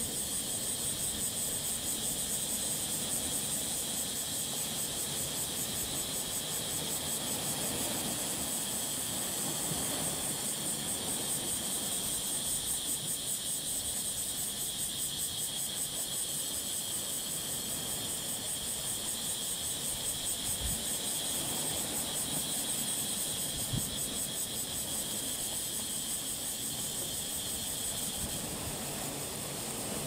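Sea waves washing in over and around shoreline boulders in a steady, gently swelling wash. Over it runs a continuous high-pitched trilling chorus of insects.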